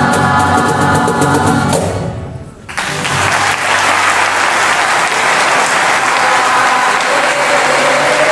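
A choir with acoustic guitars ends on a final held chord that dies away about two seconds in; after a brief pause, the audience starts applauding.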